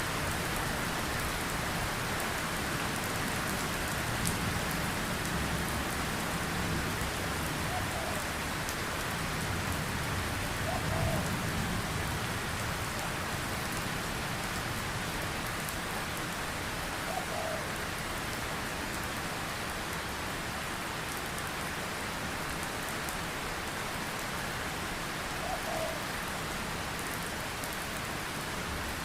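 Heavy rain falling steadily: a dense, even hiss of raindrops.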